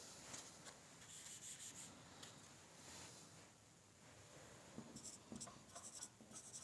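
Faint squeaks and rubbing of a marker pen writing figures on a whiteboard, in two short spells: one near the start and one again near the end.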